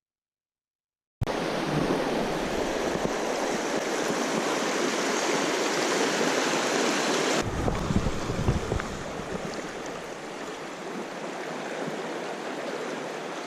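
River rapids rushing over rocks, a loud, steady wash of water starting about a second in. After a cut about seven seconds in, the flow is a little quieter, with a low rumble underneath.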